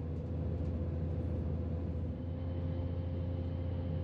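Class 168 diesel multiple unit heard from inside the passenger saloon: a steady low drone from the underfloor diesel engine and running gear, with a faint steady tone over it. The drone shifts slightly about halfway through.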